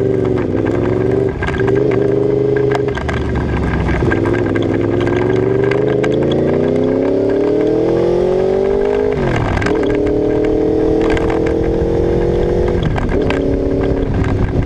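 1988 Honda VFR750F's water-cooled V4 engine pulling through the gears as the bike is ridden. Its pitch rises under acceleration and drops at each upshift, with the longest pull climbing steadily to a shift about nine seconds in.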